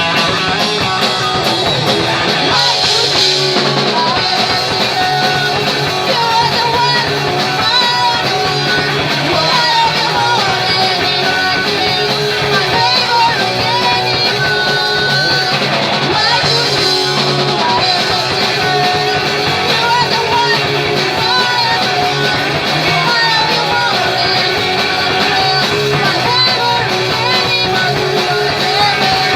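Punk rock band playing live, with electric guitars and singing.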